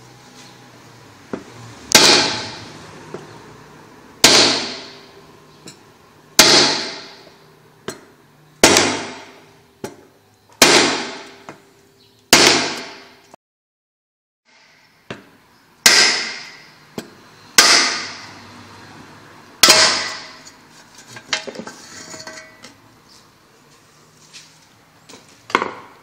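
A hammer strikes a steel rod set against the centre bore of an automatic washing machine's metal transmission housing, driving it through to knock out the shaft and bearing. There are about nine heavy blows roughly two seconds apart, each ringing out in the metal, then a few lighter knocks near the end.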